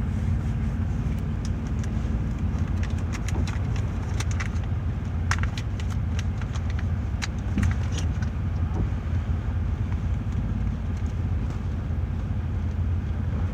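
Car driving, heard from inside the cabin: a steady low road rumble. Through the first half it is joined by many irregular sharp ticks from heavy rain striking the car.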